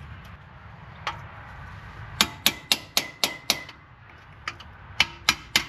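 Hammer blows on a fine chisel driven between a rust-seized wheel hub and the steering knuckle to break it free, sharp metal-on-metal strikes with a short ring. One blow about a second in, a quick run of about six at roughly four a second, a pause, then another run starting near the end.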